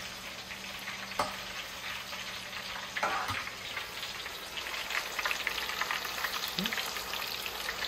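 Coated plantain strips deep-frying in hot oil in a rectangular copper pan, a steady crackling sizzle as a utensil turns them. The sizzling grows louder about three seconds in as more strips go into the oil.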